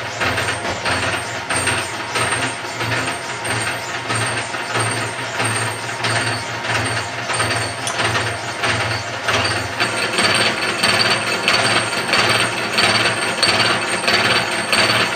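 Milling machine running, its disc gear cutter milling teeth into a steel gear blank under flowing coolant: a steady motor drone with a fast, even pulsing of the cutting. A thin high whine joins in after about ten seconds.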